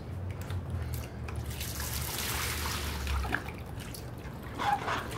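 Water trickling and dripping in a water-filled cooler as a child sits and shifts in it, over a low rumble that fades about three seconds in.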